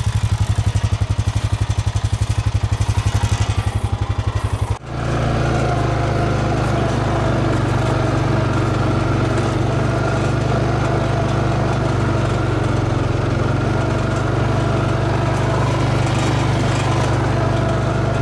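Quad bike engine running, with a fast, even pulsing for the first five seconds or so. After a sudden break it runs steadily as the bike is ridden along.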